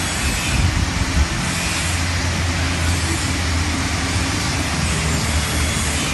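Motor vehicle running steadily, a low engine hum under a constant rushing noise.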